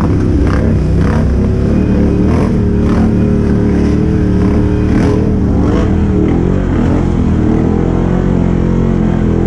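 ATV engine running loud and close, its pitch wavering up and down with the throttle, with short bursts of noise over it during the first five seconds.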